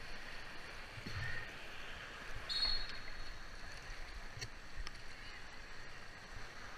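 Rushing, churning water of a river rapid around a whitewater kayak. About two and a half seconds in comes a brief high-pitched tone, the loudest moment.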